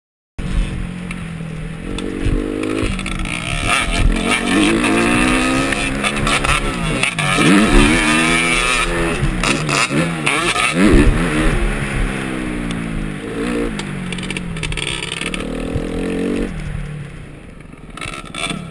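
Suzuki RM-Z250 four-stroke motocross engine, heard from a helmet camera, revving up and falling back again and again as the rider accelerates and shifts around the track. It cuts in a moment after the start and eases off near the end.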